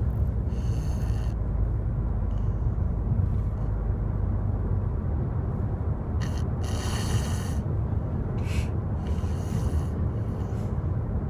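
A sleeping child snoring loudly in a car, irregular rasping snore breaths, the longest about seven seconds in, over a steady low rumble of the car.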